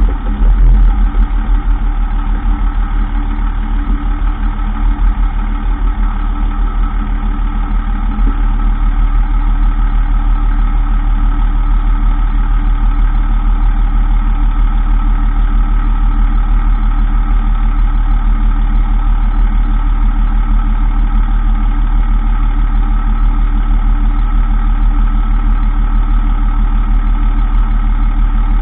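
2003 Dodge Ram 2500 pickup running with a steady, unbroken drone, the noise the owner traces to the transfer case when it is in 4x4 high. It gets slightly louder about eight seconds in.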